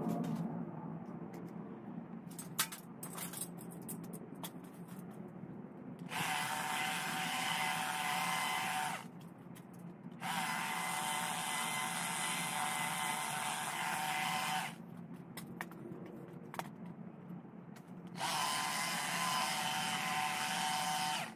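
Stihl HLA 86 battery long-reach hedge trimmer cutting the top of a hedge in three runs of a few seconds each, a steady motor whine with the blades chattering. The first run starts about six seconds in, after some light clicks and rustling.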